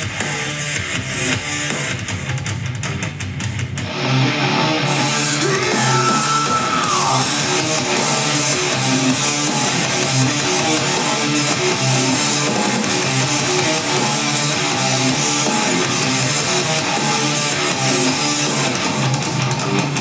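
Rock music with guitars played at maximum volume through a Sonos One smart speaker, switching about four seconds in to a second-generation Amazon Echo, after which the deepest bass drops away and the level rises.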